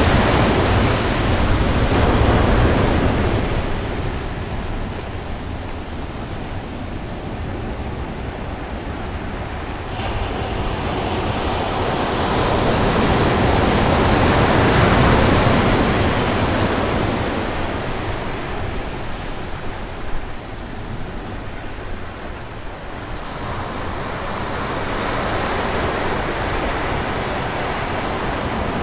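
Sea waves breaking on the beach: a steady rush of surf that swells and eases, loudest about two seconds in, again around the middle and near the end.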